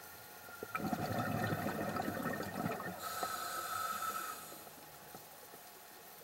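Scuba diver breathing through a regulator underwater: a gush of exhaled bubbles about a second in, then the hiss of an inhalation with a slight whistle, fading out about two thirds of the way through.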